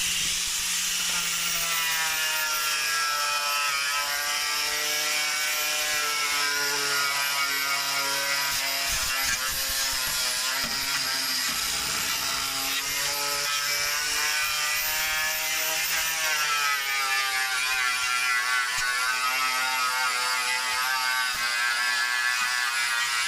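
Angle grinder with a flap wheel grinding the thin sheet-metal floor of a car, running continuously, its motor whine dipping in pitch and recovering as it is pressed into the metal.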